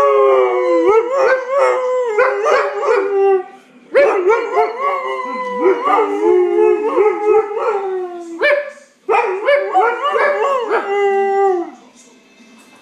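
Huskies howling: long, wavering howls that rise and fall in pitch, several voices overlapping, in three stretches with short breaks about four and nine seconds in, stopping shortly before the end.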